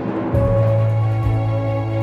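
Background music over the opening: a swelling build that breaks, about a third of a second in, into a fuller passage over a deep held bass note.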